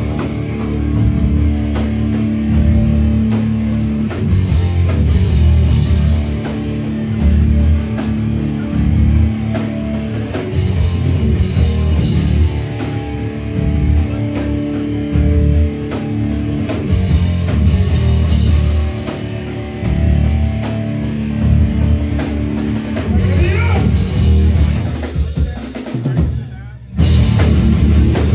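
Live hardcore band playing loud: drum kit with bass drum, and heavy low guitar and bass notes. Near the end the band stops for about a second, then comes crashing back in.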